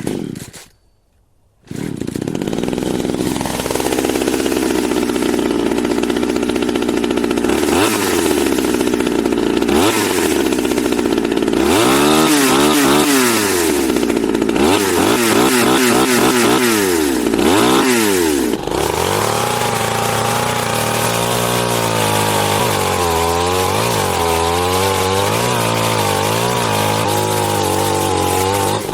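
Chainsaw starting up after a short burst and a brief pause. It runs steadily, then is revved up and down over and over, and settles into a lower, wavering run.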